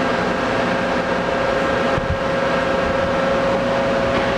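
A machine running steadily in the background: a constant drone with an unchanging whine, and a light knock about two seconds in.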